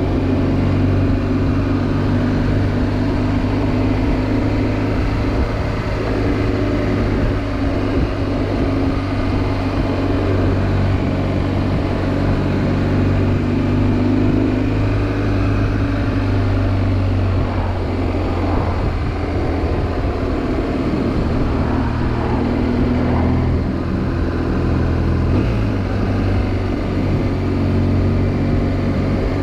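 BMW R1200GS Adventure's boxer-twin engine running through a Dominator aftermarket exhaust with the dB killer removed. It holds a steady drone with small shifts in pitch, stepping down near the end.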